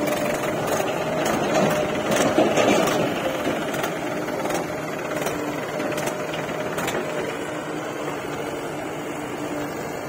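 Mahindra 575 DI farm tractor's diesel engine running steadily under load as it hauls a loaded trolley, with scattered metallic clicks and rattles. It is a little louder in the first few seconds.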